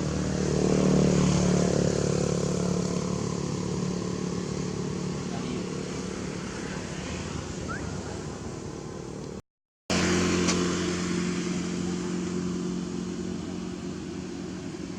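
Motor vehicle engine running steadily, loudest about a second in and slowly fading. It cuts out for a moment near ten seconds, comes back just as loud and fades again.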